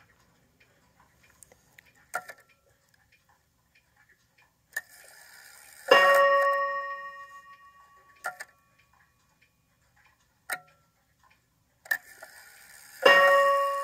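Spiegel 31-day wall clock's rack-and-snail strike being tested while the hands are turned by hand. Small clicks are followed about five seconds in by a short whir as the strike train runs, then the hammer hits the gong once and it rings out for about two seconds. Near the end there is another whir and the first blow of a new round of strikes.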